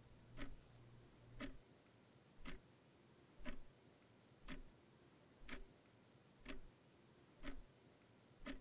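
Wall clock ticking slowly and evenly, about one tick a second.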